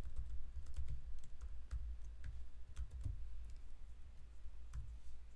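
Typing on a computer keyboard: a run of irregular key clicks that stops shortly before the end.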